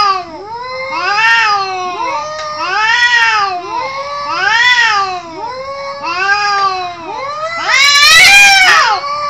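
Two cats in a face-off yowling at each other: long, wavering caterwauls that rise and fall in pitch, one low voice and one higher voice overlapping and trading calls about every second and a half. The loudest, harshest yowl comes about eight seconds in. This is the threat yowling of a standoff before a fight.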